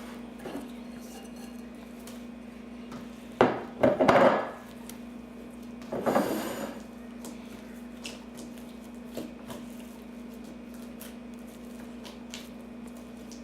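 A stirring utensil knocking and scraping against the container as glitter is stirred into clear slime: a sharp knock about three and a half seconds in, two louder scraping bursts around four and six seconds in, then a few light ticks. A faint steady hum runs underneath.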